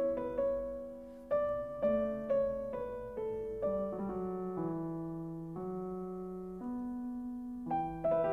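Slow solo piano music: single struck notes ringing out and fading, over a low line that steps downward and climbs again near the end.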